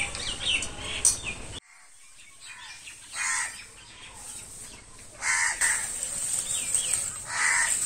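Birds calling: a quick run of small chirps, then after a short lull three short harsh calls about two seconds apart.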